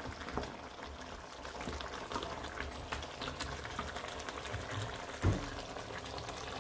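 Crab curry with coconut milk simmering in the pot, a steady patter of small bubbles popping. There is one soft thump about five seconds in.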